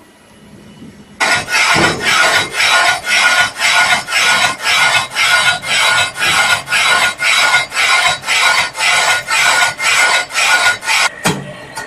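Facing heads of a valve and pipe machining machine cutting metal on a strainer or tee-joint body: a loud, harsh scraping that pulses evenly about twice a second. It starts about a second in and stops abruptly near the end.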